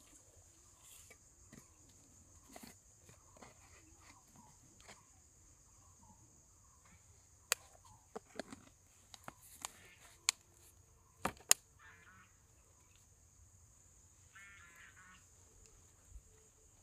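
Faint steady insect drone, with a run of sharp clicks and taps partway through as a plastic jar and its screw lid are handled. Later come two short pulsed animal calls.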